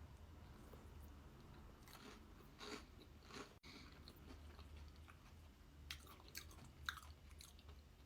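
Faint chewing of a bite of sourdough bread topped with pesto and tomato, with a few soft crunches scattered through.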